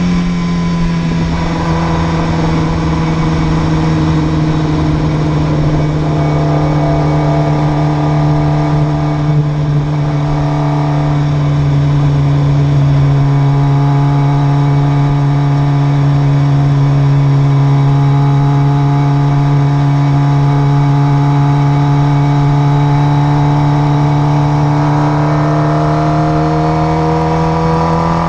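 Motorcycle engine running at a steady highway cruise. It settles to a lower pitch about a second in, then the pitch climbs near the end as it accelerates.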